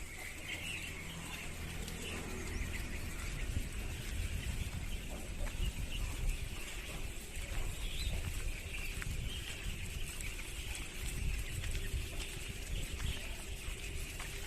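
A flock of chickens calling together in a steady chorus of peeping, over a continuous low rumble.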